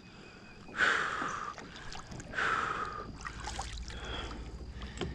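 Kayak paddle strokes splashing in the water, two swishes about a second and a half apart, as the kayak is turned around.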